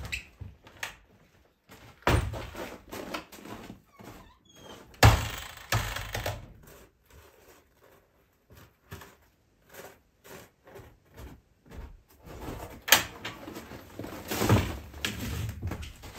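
A wooden cabin door being opened and handled, with irregular knocks, thumps and clatter; the loudest thumps come about two, five and thirteen seconds in.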